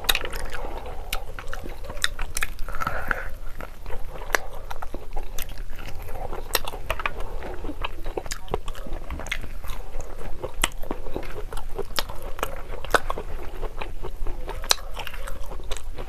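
Close-miked chewing of mutton curry and rice eaten by hand: wet mouth sounds and many sharp lip-smacking clicks, irregular and constant.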